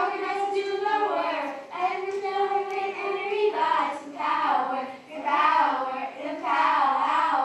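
Children singing a song, holding long steady notes.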